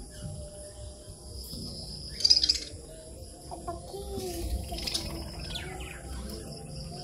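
Birds calling, with short wavering calls throughout and one louder, sharp high call about two seconds in.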